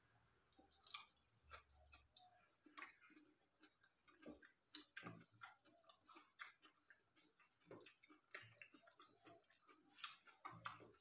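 Faint, irregular small clicks and smacks of two people eating rice by hand from steel plates.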